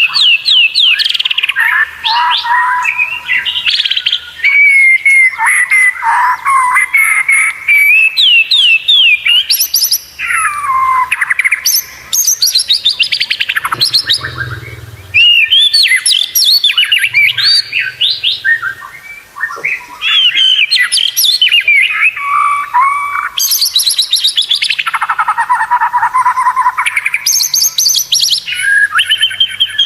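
White-rumped shama (murai batu) singing a long, varied song of whistled glides and rapid trills, almost without pause.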